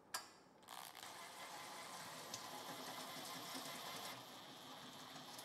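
A sharp click, then a small motor whirring steadily for about five seconds, its pitch settling slightly lower about four seconds in.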